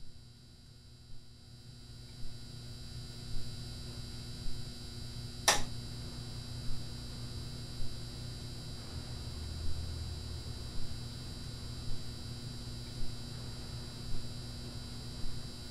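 Quiet opening of a song: a steady low hum and drone, getting louder over the first couple of seconds, with a soft beat about once a second and one sharper click about five and a half seconds in.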